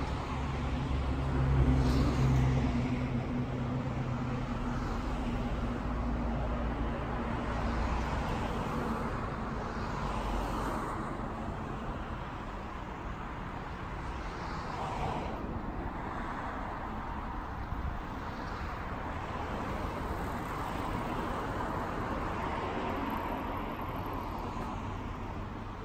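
City street traffic: cars passing and running in the road. A vehicle engine hums close by in the first few seconds and is loudest about two seconds in, then the traffic settles to a steady background.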